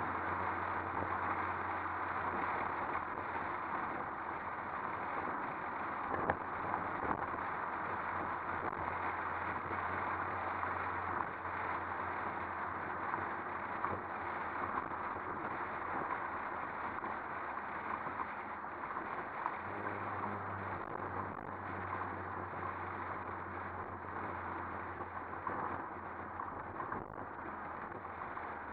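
Steady wind rush and road noise from a moving convertible, picked up by a camera mounted on the outside of the car, with a low steady hum underneath.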